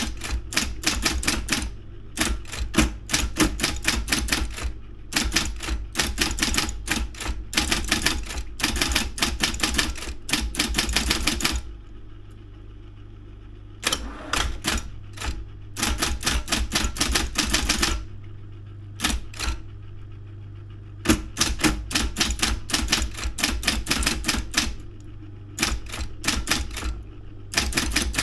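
Daro 202 electric typewriter typing in fast runs of sharp keystrikes. It pauses twice, and in the pauses only the steady hum of its running motor is heard.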